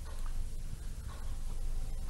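Background noise of an old 1950s recitation recording between verses: a steady low rumble with hiss, and a few faint, scattered short sounds.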